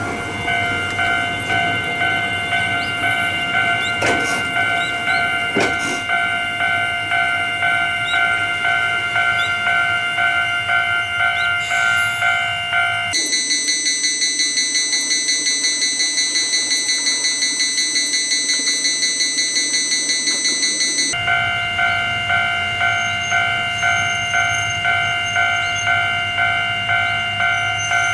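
Electronic railway level-crossing warning bell ringing in a steady repeating beat, the signal that a train is approaching. For several seconds in the middle a higher-pitched, faster bell takes its place. Two sharp knocks come early on.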